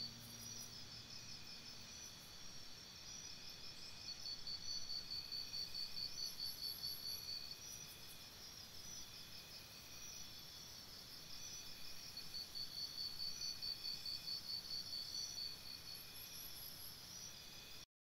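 Faint chorus of crickets chirping in steady, evenly pulsed high trills that swell and fade twice, with short, very high chirps twice over it. A low music tone fades out in the first two seconds, and the sound cuts off suddenly just before the end.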